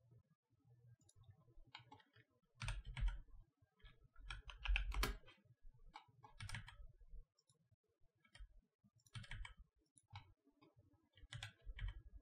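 Computer keyboard keys and mouse buttons clicking in irregular short runs as shortcuts are pressed, some keystrokes with a dull knock.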